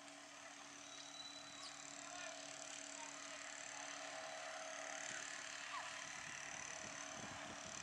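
Outboard motor of a small planing motorboat running at speed, heard from far off as a faint steady drone that grows slightly louder.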